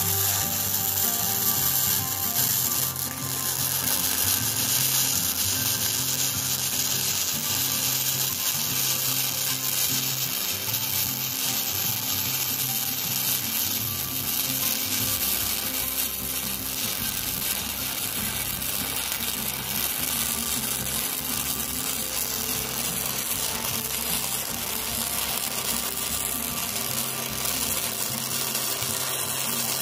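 Gasless flux-core MIG welding arc on thick steel: a continuous, loud crackling sizzle as the wire feeds and a bead is laid, with the welding current turned up slightly.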